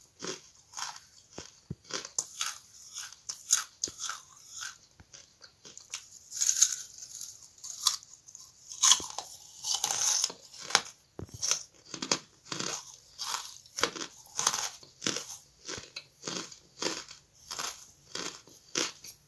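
A person biting and chewing charcoal: a steady run of crunches, roughly two a second, louder and denser for a few seconds near the middle.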